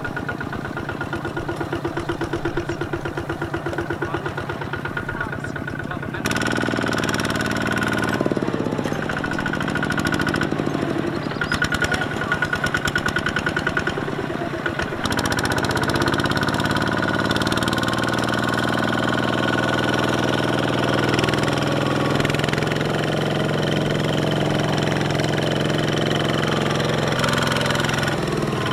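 Kubota ZT140 walking tractor's single-cylinder diesel engine chugging with a rapid, even beat of firing strokes as it pulls its trailer through the paddy. The sound changes abruptly and grows louder about six seconds in and again around fifteen seconds.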